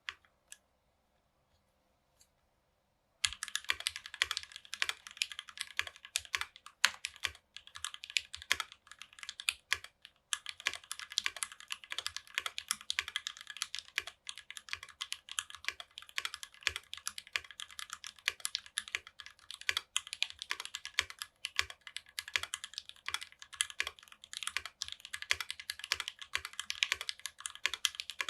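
Typing on a mechanical keyboard with lubed and filmed JWK Alpaca linear switches, a brass plate and GMK keycaps, giving a hard-edged clack. A few single keystrokes, then fast continuous typing from about three seconds in, with a short pause near ten seconds.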